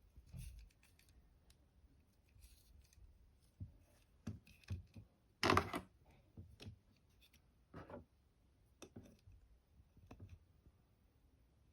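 Hands unboxing a doll: scattered light clicks, taps and rustles of handling, the loudest a short scrape about halfway through.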